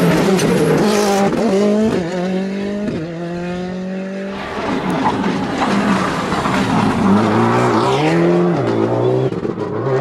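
Rally cars at racing speed on a tarmac stage. A Ford Fiesta R5's turbocharged engine revs hard, its pitch rising with a quick upshift about every second. About halfway through it gives way to a second rally car, a Subaru Impreza, whose engine drops and rises in pitch as it brakes and pulls through a bend.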